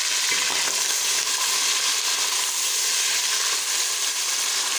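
Sliced onions frying in hot oil, a steady sizzle, stirred with a wooden spoon.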